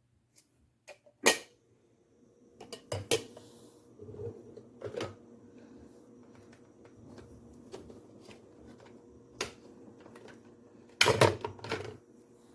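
A series of sharp clicks and knocks, as of objects being handled and set down, with a denser cluster near the end, over a faint steady hum.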